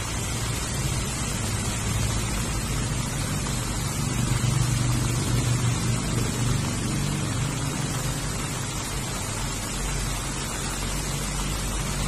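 Heavy rain falling steadily on grass and garden plants, an even hiss of drops. Under it a low rumble swells about four seconds in and eases off a few seconds later.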